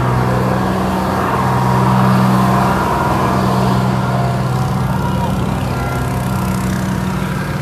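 A vehicle engine running steadily nearby with a constant low hum.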